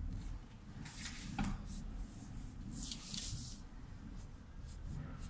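White coloured pencil scratching over marker-coloured paper and the drawing sheet being shifted on the table: a few short, dry, scratchy hisses, the longest about three seconds in, over a steady low room hum.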